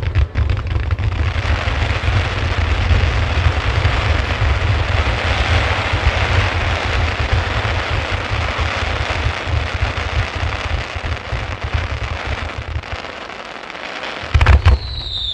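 Wide starmine fireworks barrage: rapid, overlapping shell bursts merge into one continuous rumbling mass. It eases off about thirteen seconds in, then a fresh loud burst comes near the end.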